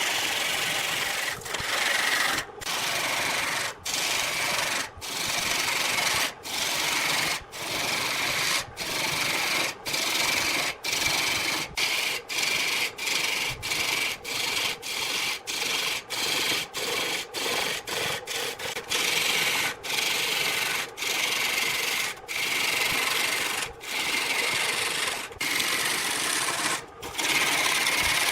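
Wood being worked by hand in long back-and-forth rasping strokes, about one stroke a second, quickening to about two a second in the middle and slowing again.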